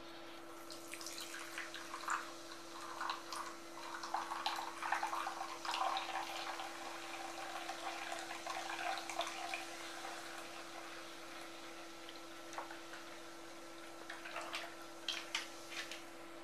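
Fizzy soda poured from an aluminium can into a glass bowl, splashing and fizzing for about ten seconds. The pour then thins, and a few sharp ticks come near the end. A steady faint hum runs underneath.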